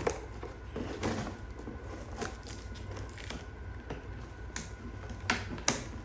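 Scissors cutting through toy packaging: irregular snips and clicks, the two sharpest snaps near the end.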